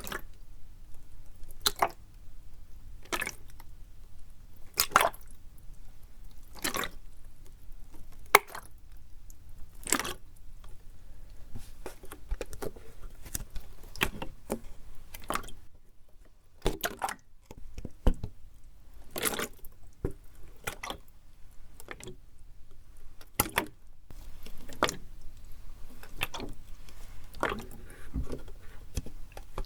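Plastic PET bottle being handled for ASMR, crinkling and crackling in sharp separate crackles, about one every second and a half at first, then quicker and more irregular.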